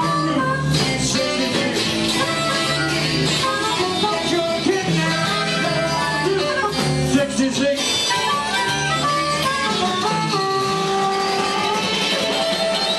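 Live rhythm-and-blues band playing an instrumental passage: electric guitars, bass and drums, with saxophone and harmonica on stage.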